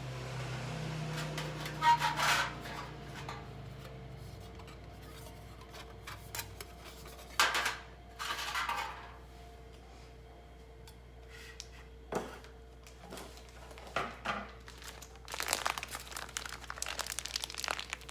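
Crinkling and rustling of a packaging bag being handled, in short crackly bouts about two seconds in and again around eight seconds in, then a longer, busier stretch of rustling near the end.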